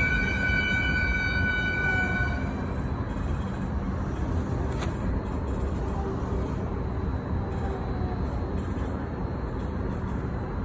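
Low, steady running rumble of a train heard from inside the carriage. A train horn sounds one steady pitched blast for about two and a half seconds at the start, and there is a single sharp click about five seconds in.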